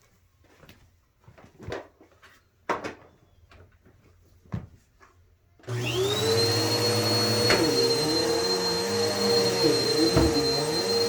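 A few light knocks, then a vacuum cleaner switched on about halfway through. Its motor spins up within a fraction of a second to a steady high whine and keeps running.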